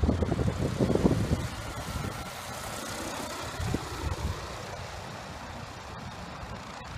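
Wind buffeting the microphone in gusts for about the first second and a half, then the faint steady whine of a foot-launched powered hang glider's small motor as the glider comes in low to land.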